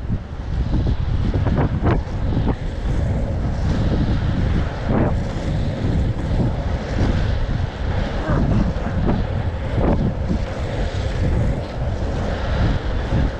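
Wind buffeting the microphone of a skater racing on inline speed skates, over the rumble of the skate wheels on asphalt, with occasional brief knocks.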